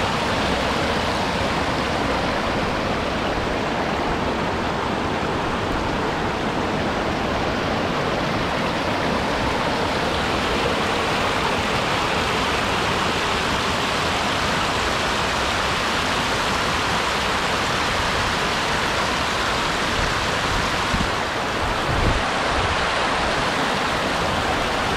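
Shallow mountain stream rushing and splashing over stones: a steady, even rush of water.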